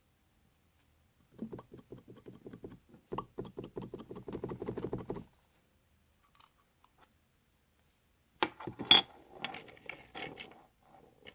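Crunchy slime made with Tide and Elmer's Magic Liquid being squeezed and worked by hand, giving rapid crackling and popping for about four seconds, then, after a pause, a sharper, louder burst of crackles.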